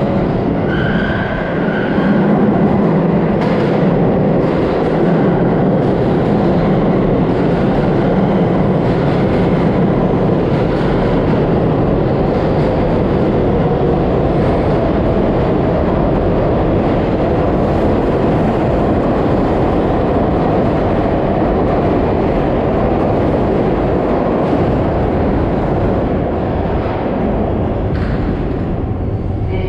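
R188 New York City Subway train running through an underground station, a loud steady noise of wheels on rail and traction motors with some clatter. A brief high whine sounds about a second in.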